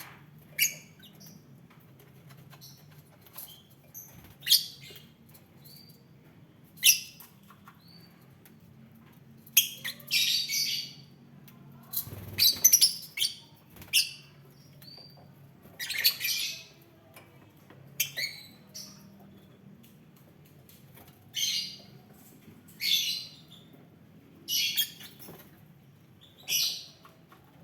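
Lovebirds calling: a string of high-pitched chirps and harsher squawks at irregular intervals, some short and sharp, others lasting nearly a second.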